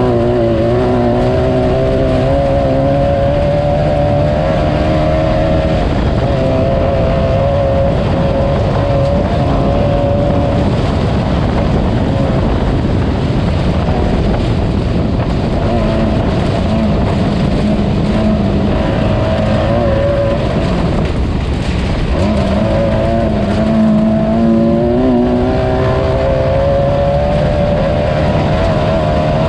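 Class 9 off-road race car's engine running hard, its pitch stepping and climbing up and down with throttle and gear changes, over a steady rush of driving noise.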